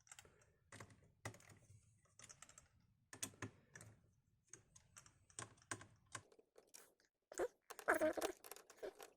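Small screwdriver undoing the heatsink screws inside a Sony Vaio laptop: irregular light clicks and taps of the bit and screws, with a louder clatter near the end.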